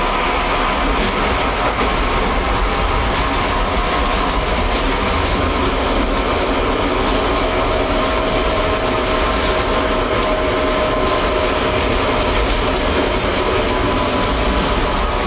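Tram running along its tracks: a steady rumble of wheels on rail with a faint steady whine on top.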